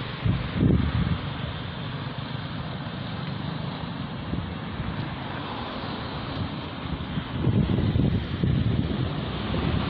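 Road traffic noise with wind rumbling on the microphone, a steady hiss with louder low gusts just after the start and again from about seven and a half seconds in.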